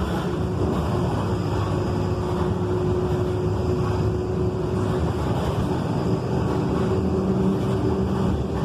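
Volkswagen 17.230 truck's diesel engine running steadily, with a steady hum under the engine noise.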